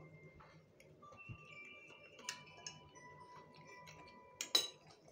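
Eating sounds over faint background music with long held notes: chewing, and a few sharp clicks of a fork against a glass plate, the loudest about four and a half seconds in.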